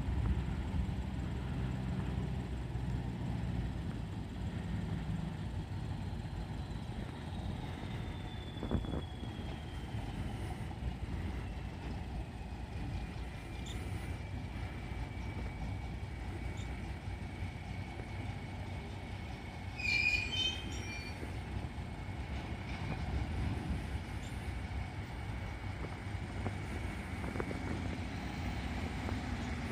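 Arcade & Attica Railroad train moving slowly with a steady low rumble and a long high wheel squeal that slides down in pitch, then holds steady for about fifteen seconds. A single knock comes about a third of the way in, and a short burst of sharp squeaks, the loudest sound, about two-thirds through.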